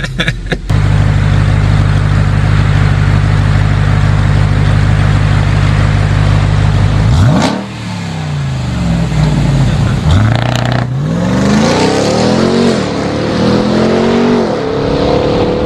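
Car engine idling steadily, then a hard launch: about seven seconds in it revs up, and its pitch climbs and drops again several times as it shifts up through the gears under full acceleration.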